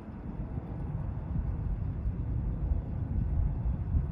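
The four General Electric CF6 engines of a Boeing 747-400 freighter, heard as a steady low rumble as the jet climbs away after takeoff.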